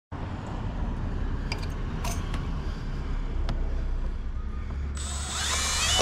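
Steady background noise with a few clicks, then about five seconds in a cordless drill starts, its motor whine stepping up and down in pitch as it drives a screw into the house wall.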